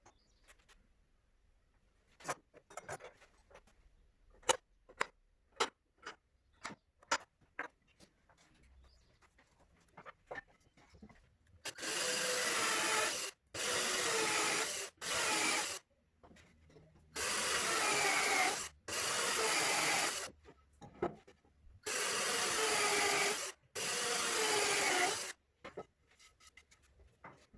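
A drill boring holes into wood in seven short bursts of one to two seconds each, each starting and stopping abruptly. These follow a run of light clicks and knocks from handling tools and wood.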